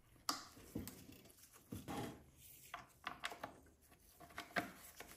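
Faint scattered clicks, knocks and rubbing of small parts being handled: the chainsaw's throttle trigger and linkage being fitted back into its handle.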